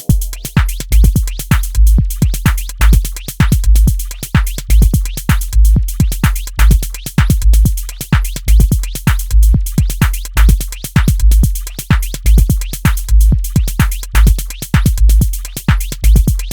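Minimal / deep tech drum loop from an electronic sample pack: crisp, clicky percussion hits in a steady, tight rhythm over a pulsing deep sub-bass.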